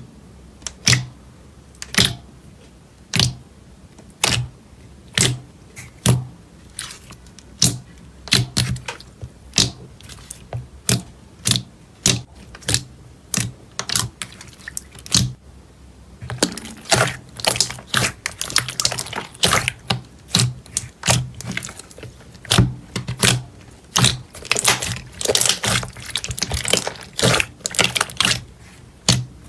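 Slime being pressed and worked by hand, giving sharp, wet clicking pops. They come about once a second at first, then much faster and denser from about halfway through.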